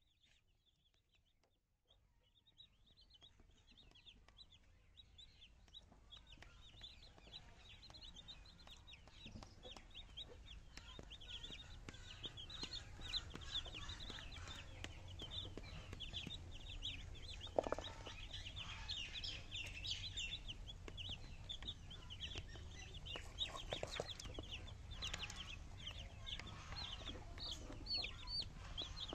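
A group of baby chicks peeping: many short, high chirps overlapping without pause, fading in over the first several seconds. A few sharp clicks stand out among the chirps.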